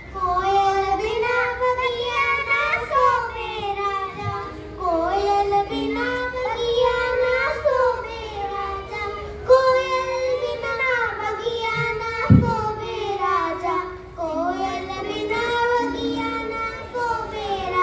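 Children singing a song with music, the melody running on in long, gliding phrases. A single low thump about two-thirds of the way through.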